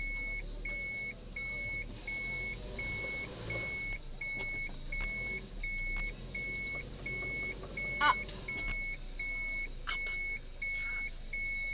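Car's reverse-gear warning beeping inside the cabin, a high even beep about one and a half times a second, over the low hum of the running engine. A brief sharp sound about eight seconds in is the loudest moment.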